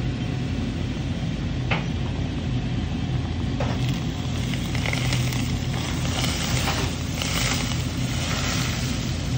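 Hot oil poured over dried chilies, chili powder and cilantro on top of boiled fish, sizzling, strongest in the second half. A steady low hum runs underneath, with two light clicks in the first few seconds.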